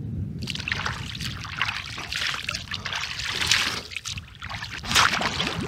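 Lake water splashing and dribbling as a person moves in it, irregular and uneven, with a louder splash near the end.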